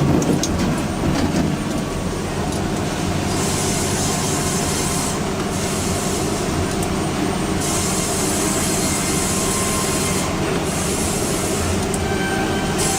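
Heavy machinery running steadily: a continuous mechanical rumble with a high hiss that comes in and cuts out several times.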